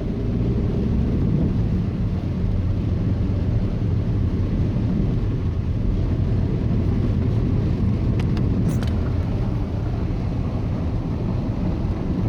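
A car driving steadily, with continuous low engine and road rumble. A few faint ticks come about eight seconds in.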